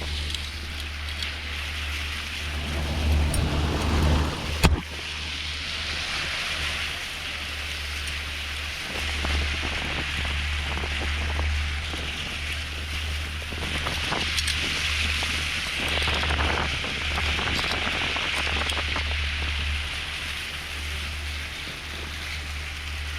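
Boat engine running steadily, with water rushing past the hull and wind on the microphone; a single sharp knock about four and a half seconds in.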